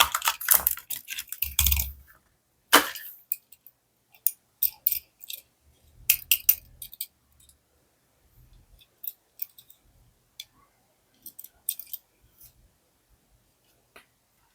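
Plastic and cardboard toy-car packaging being handled: a burst of crinkling in the first two seconds, a sharp click near three seconds in, then scattered small clicks and taps that thin out.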